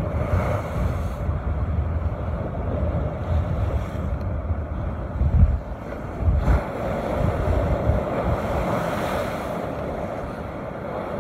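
Heavy surf breaking and washing over shoreline rocks, with strong wind gusting on the microphone.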